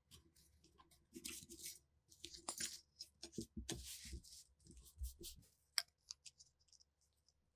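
Quiet handling noises: a stiff blue sheet rustling and scraping as it is worked around a black-painted steel PTRD rifle part. There are a few soft knocks as the part is set down on a wooden bench, and a sharp click a little before the end.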